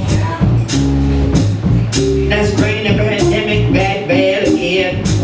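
Live band playing: a drum kit keeping a steady beat of about two hits a second, bass, guitar and keyboards, with a woman singing into a hand-held microphone.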